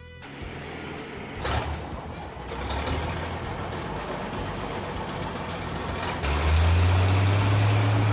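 Heavy truck engine sound effect running with a steady rushing noise; a loud low hum comes in about six seconds in and holds.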